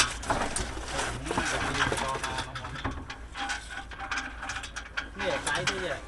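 Rapid clicking and rattling of hand work on PV module mounting hardware and cables, with a few words spoken about a second in and again near the end.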